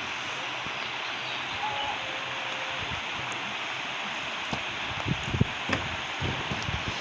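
Steady rushing of a waterfall, with a few dull thumps in the second half.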